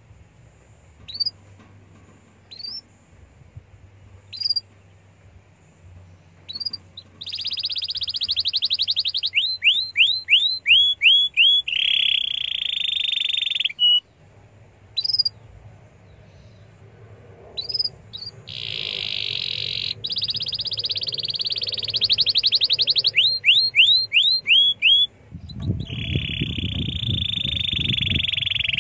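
Domestic canary singing: a few single rising chirps, then loud buzzing rolls alternating with runs of quick repeated rising notes, the typical canary lure song used to set other canaries singing. A low rumble lies under the last roll near the end.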